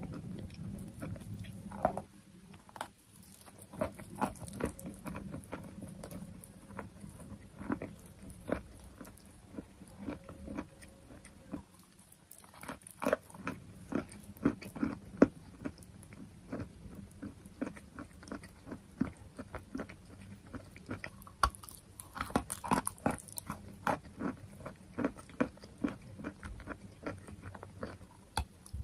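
Sweet chalk being bitten and chewed close to the microphone: a long run of sharp, irregular crunches, several a second at times.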